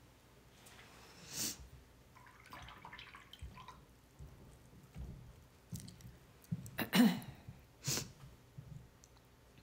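Scattered small handling noises of watercolour work: a few brief brush swishes and dabs, the loudest about seven seconds in.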